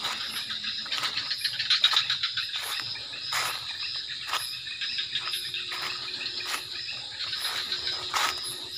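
A night chorus of crickets and other insects trilling steadily at a high pitch, with scattered short clicks and rustles over it.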